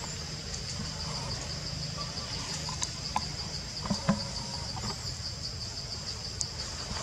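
Insect chorus in the forest: a steady, rapidly pulsing high buzz. A few faint knocks and snaps sound about three to four seconds in.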